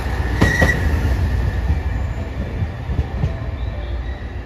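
Limited-express diesel railcar train arriving along a station platform: a steady low rumble of engines and wheels, with a couple of wheel knocks and a faint squeal about half a second in, slowly fading as it slows.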